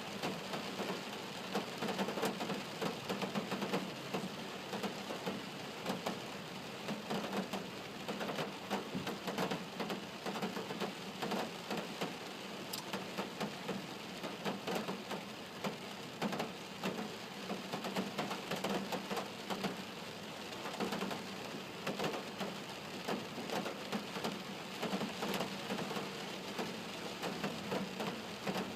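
Steady rain falling, with a dense spatter of individual drops hitting close by.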